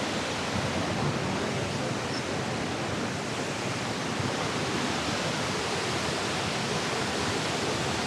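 Waterfall: the steady, unbroken rush of falling water.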